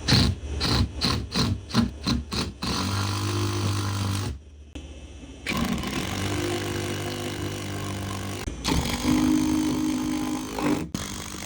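About eight quick knocks, roughly three a second, as the walk-in cooler door's hardware is worked on, followed by a steady mechanical hum.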